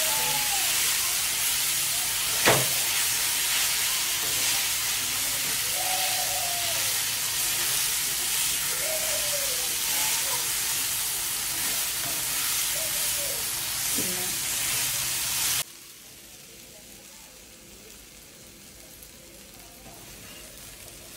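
Eggplant bharit sizzling on a hot black tawa while a metal spatula stirs and scrapes it across the pan, with one sharp tap about two and a half seconds in. The sizzle cuts off suddenly about fifteen seconds in, leaving only a faint hiss.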